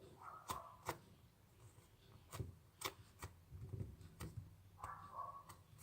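Faint handling of a foam squishy toy shaped like a watermelon: scattered soft clicks and rustles as it is squeezed and turned in the hands.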